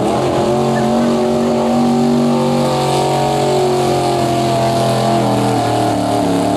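Pro stock pulling truck's engine held at high revs under load, pulling the sled; a loud, steady drone whose pitch wavers slightly near the end.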